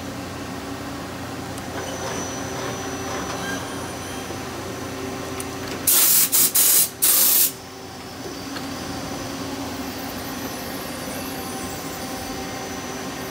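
Compressed-air blow gun hissing in three short blasts about six seconds in, over the steady hum of a 1995 Miyano BNC-34A CNC turning center running.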